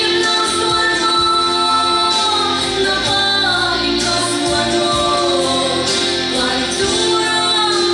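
A woman singing a song into a handheld microphone, holding long notes, over an instrumental accompaniment.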